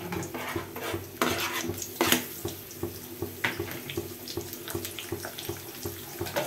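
Sliced onion frying in hot oil in an iron kadai: a steady sizzle, with a few sharp scrapes as it is stirred, about one, two and three and a half seconds in.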